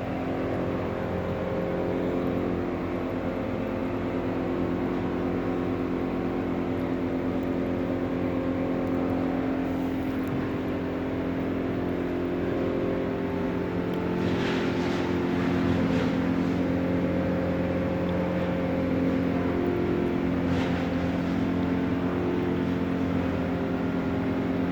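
Crane's engine running steadily, its pitch shifting slightly, with a few short hissing sounds a little past the middle.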